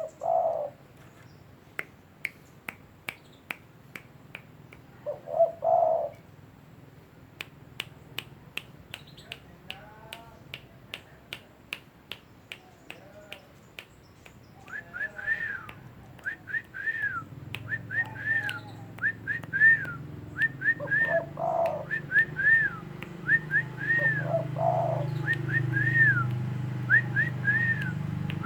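A pet dove cooing in short phrases, four times, among many sharp repeated clicks. About halfway in, a run of short arched chirping whistles begins, and a low hum joins them.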